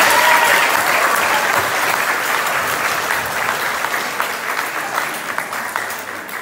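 Audience applauding, loudest at the start and slowly tapering off.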